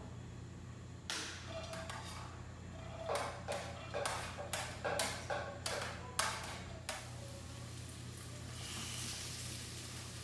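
Kitchen clatter: a knock, then a quick run of about nine sharp knocks and taps of utensils on cookware with a slight ring. Near the end a faint hiss of food starting to sizzle in a pan comes in, over a steady low hum.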